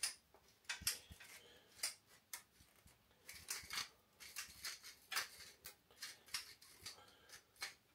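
Salt and pepper grinder being twisted by hand, grinding quietly in short, irregular clicky bursts.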